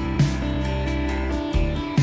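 Background music: held chords over a shifting bass line, with a steady beat.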